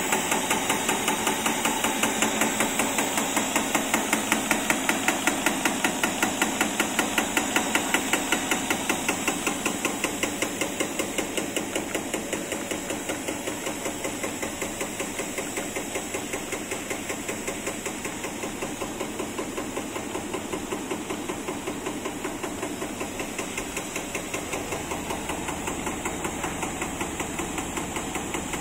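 Drinking straw extrusion line running, its cutter clacking in a rapid, even rhythm as it chops the extruded tube into straws, over a steady machine hiss. The clacking gets a little quieter after about ten seconds.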